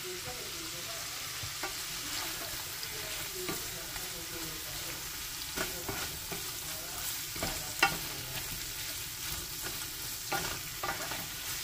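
Beef salpicao (cubes of beef with fried garlic) sizzling in a frying pan while a wooden spatula stirs it, the spatula knocking and scraping against the pan now and then, with one louder knock about eight seconds in.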